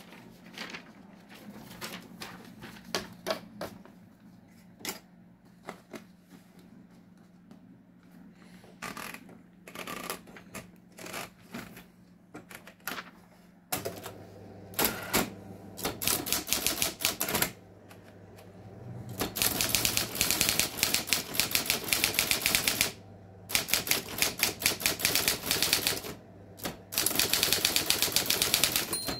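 Erika Präsident electric typewriter: scattered single key strikes over the steady hum of its motor, then from about halfway the hum strengthens and the keys strike in fast, dense runs of typing, broken by short pauses.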